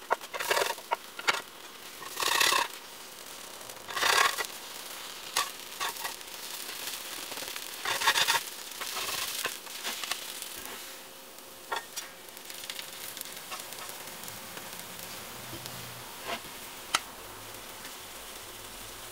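Green-tea batter sizzling softly in a square ridged nonstick pan, with a spatula scraping under it and rolling it over in a few short strokes, and a few light taps of the spatula on the pan.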